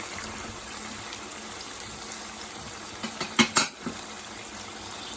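Chicken frying in hot oil in a pot, a steady sizzle, with a few sharp knocks against the pan about three and a half seconds in.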